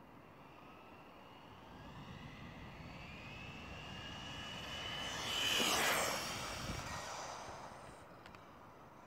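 HSP XSTR Pro electric RC car making a high-speed pass: the motor and gear whine grows louder and climbs in pitch as the car approaches. It is loudest about six seconds in as the car passes, then drops in pitch and fades away.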